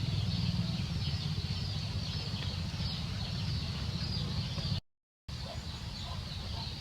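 Steady outdoor background noise with a few faint chicken clucks. The sound cuts out completely for about half a second around five seconds in.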